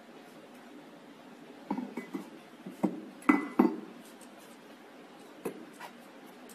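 Chrome-plated steel tubes of a children's trike frame clinking and knocking against each other as they are handled and fitted: a handful of separate metallic knocks, most of them clustered around the middle, two of them the loudest.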